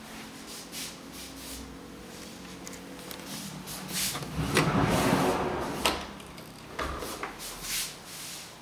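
A wooden interior sliding door rolled open along its track, the loudest sound coming about halfway through, with scattered clicks and knocks before and after.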